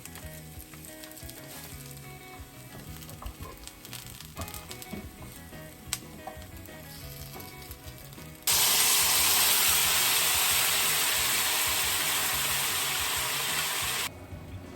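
Food frying in a hot pan: a loud sizzle starts suddenly about eight seconds in, eases slightly, and stops abruptly about five seconds later. Before it there are only faint small clicks and knocks.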